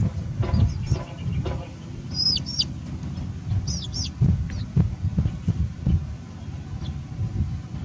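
High, short chirping calls that glide downward, coming in clusters of two or three, over a steady low rumble with knocks.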